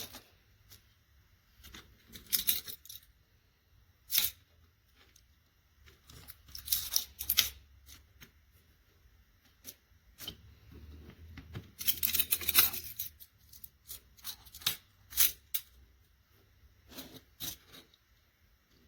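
Product packaging being opened and handled: irregular bursts of tearing and crinkling, with scattered small clicks and knocks in between.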